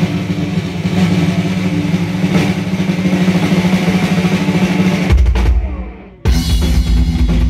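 Heavy metal band playing live: a fast drum roll under a sustained low chord. About five seconds in comes a heavy low bass hit, then a brief drop, and the full band crashes in with the song's opening.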